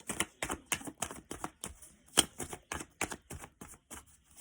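A deck of tarot cards being shuffled by hand: a quick, uneven run of card slaps and flicks, about five a second.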